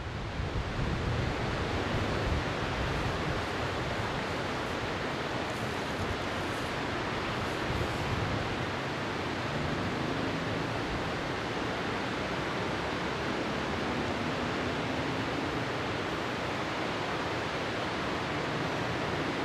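Steady rushing noise, with a faint engine note rising in pitch in the last few seconds as the HGm 4/4 diesel locomotive draws nearer.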